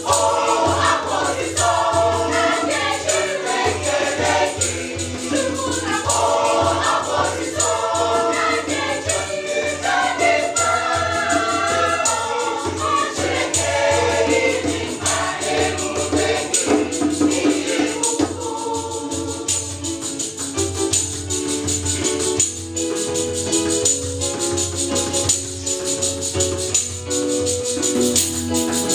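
Gospel choir singing in harmony, accompanied by an electronic keyboard and a hand drum, with shaken percussion keeping the beat. About two thirds of the way through the higher voices fall away and lower, held notes carry on.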